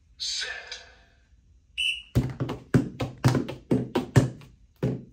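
A short beep, then a fast run of hand slaps on reaction-training target pads, about five hits a second, starting about two seconds in. A short hiss at the start.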